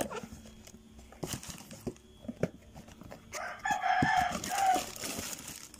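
A rooster crowing in the background, one drawn-out call starting a little past halfway, over scattered light clicks and rustles of a cardboard box and paper being handled.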